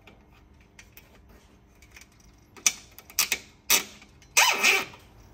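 Nylon cable tie being threaded around a wiring cable and pulled through its locking head: faint ticking, then a few sharp clicks and a longer ratcheting zip near the end as the tie is drawn up, left not fully tight.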